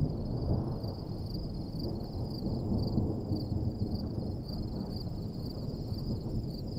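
Wind noise on the microphone, with a steady chorus of insects trilling high above it.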